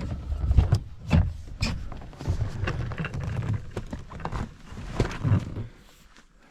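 Irregular knocks and thuds over a low rumbling, like someone moving about and handling things, fading off near the end.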